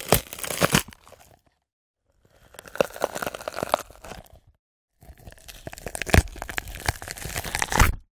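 Zombie munching sound effect: wet tearing, crunching and chewing, as of a monster biting into flesh. It comes in three separate takes with silence between them: a short one at the start, another about two seconds in, and a longer one from about five seconds in, with the loudest crunches near its end.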